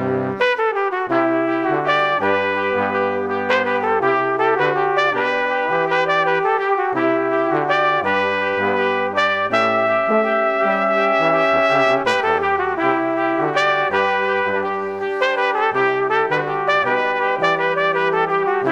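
Instrumental background music: a melody over a bass line that moves step by step.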